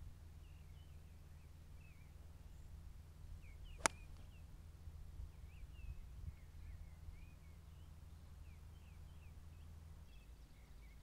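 A single sharp click of a 7-iron striking a golf ball off the tee, about four seconds in.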